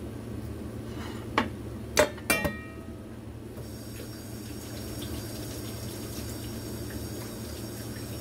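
A stainless steel bowl knocks about four times against the sink, the third knock leaving a brief metallic ring. Then the kitchen tap runs steadily as hands are washed under it, over a steady low hum.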